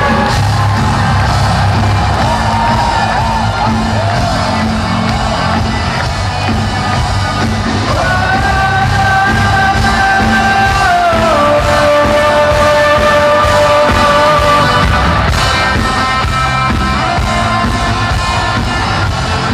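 Live amplified music with a singer over a heavy bass beat, with a crowd yelling and cheering. The voice holds a long note from about eight seconds in, then steps down to a lower held note.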